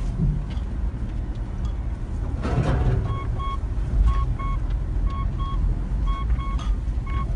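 Car interior while driving over rough pasture: a steady low rumble, with a dashboard warning chime beeping repeatedly in short high tones from about three seconds in.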